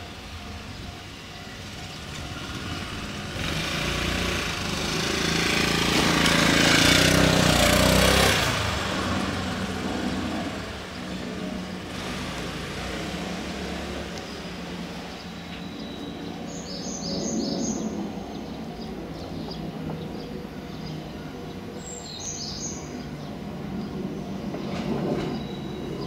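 Electric commuter train rolling slowly along the track, with a steady low rumble and a louder rush of noise peaking about seven to eight seconds in. Short high chirps come in two little groups, at about 17 and 22 seconds.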